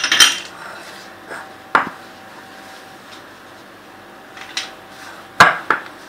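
Glass mixing bowl knocking sharply a handful of times as a gloved hand presses and rubs crumbly flour, butter and sugar cookie dough together in it; the loudest knocks come near the end.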